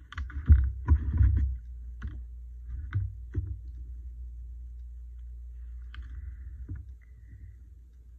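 Hands handling a paper quote sticker and scissors on a craft tabletop: several heavy dull knocks and paper rustling in the first second and a half, a few lighter knocks after, and another stretch of paper crackle about six seconds in as the sticker's backing paper is peeled off. A low steady hum runs underneath.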